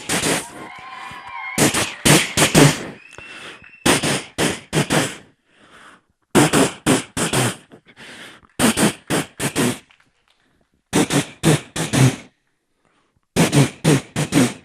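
Vocal mimicry of gunfire: a performer imitating volleys of shots into a microphone, in quick groups of three or four sharp bangs every couple of seconds, with a short warbling whistle about a second in.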